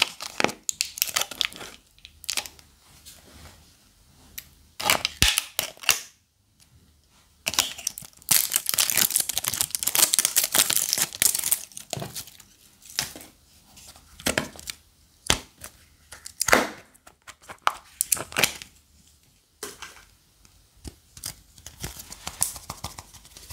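Thin plastic shrink-wrap seal being torn and peeled off a Play-Doh tub, crinkling in irregular bursts with a longer crackling stretch midway, and a few sharp clicks.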